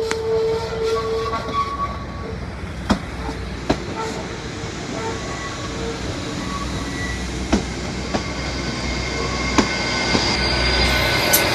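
Hull Trains Class 802 bi-mode train pulling out slowly on its underfloor diesel engines: a steady low engine rumble, with about five sharp clicks as its wheels cross rail joints. A high-pitched wheel noise builds near the end.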